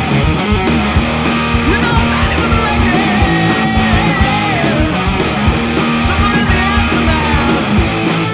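Loud punk-rock song: distorted electric guitars over bass and a steady drum beat, with a lead line gliding in pitch.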